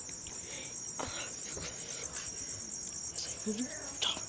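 Steady high-pitched chorus of insects, a rapid pulsing trill, with a few faint clicks.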